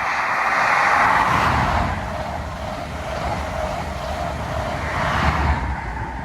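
Class 43 High Speed Train passing at speed: a loud rush of engine, wheel and rail noise with a low rumble beneath it. It is loudest at the start and swells again near the end.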